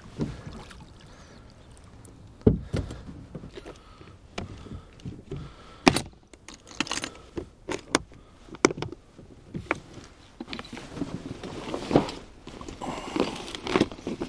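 Irregular knocks, clatters and rattles of gear being handled in a small rowboat, with a few sharp knocks spaced a second or more apart and busier rattling near the end.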